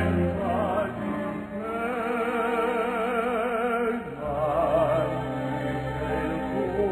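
Operatic singing with a wide vibrato over held low accompanying notes; the low notes change about four seconds in.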